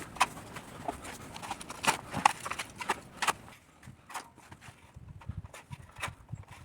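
Pooper scooper and rake knocking and scraping on the ground in irregular strokes, busiest in the first few seconds and fainter after.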